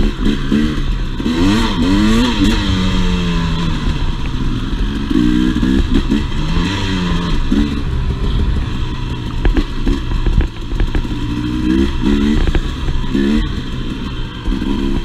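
Two-stroke dirt bike engine being ridden on a trail, its pitch rising and falling again and again as the throttle is opened and closed, with scattered knocks and clatter.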